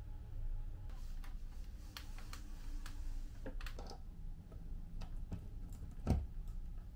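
Light plastic clicks and taps, then a firmer click-knock about six seconds in as a two-pin power plug is pushed into a wall socket, over a low room hum.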